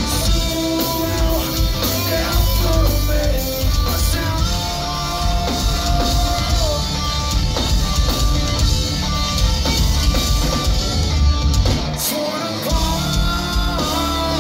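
Live metal band playing loud: distorted electric guitar under a singer's vocals. The low end drops out briefly about twelve seconds in.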